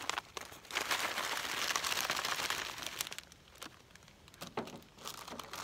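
Freeze-dried meal packaging (a foil pouch and a small plastic bag) crinkling as it is handled. It is loudest for about two seconds, starting about a second in, then gives way to lighter scattered rustles.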